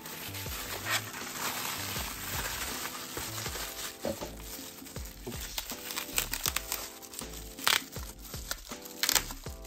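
Plastic bubble wrap crinkling and crackling as it is pulled off a wrapped stack. A dense rustle runs through the first few seconds, followed by scattered sharp crackles, the loudest two near the end.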